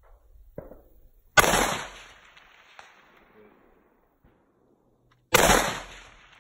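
Two rifle shots about four seconds apart, each a sharp crack followed by an echo that trails off over about a second.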